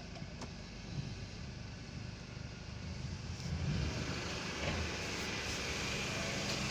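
Mercedes C200's engine idling steadily, freshly refilled with coolant after a thermostat replacement and left running to circulate it.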